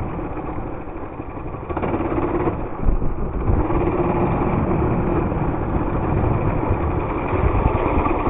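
Small mini bike engine running under way. It eases off during the first second and picks back up at about two seconds in, then runs on steadily.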